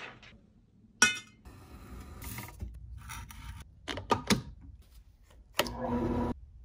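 Workshop handling sounds: a sharp metallic clank about a second in, then a quick run of clicks from a one-handed bar clamp being squeezed tight onto an aluminium pedalboard frame around four seconds in. Near the end a drill press runs briefly, drilling into the frame.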